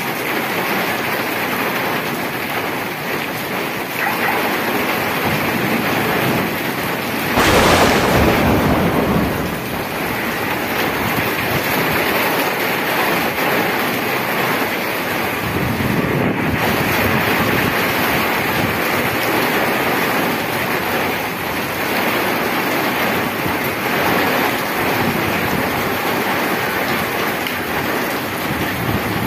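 Heavy rain pouring steadily onto a wet street and sidewalk. About seven seconds in, a sudden louder rush lasts about two seconds.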